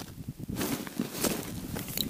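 Rustling of padded winter-jacket sleeves as the hands work at an ice-fishing rod, with a few short scuffs.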